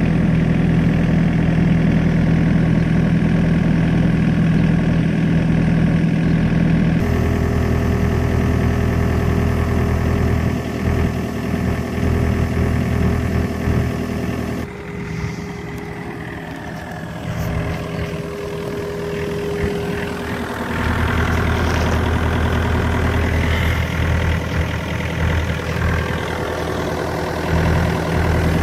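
Diesel engine of a Komatsu PC50MR-2 midi excavator idling steadily. Its tone shifts abruptly about a quarter of the way in, and it gets somewhat quieter about halfway through.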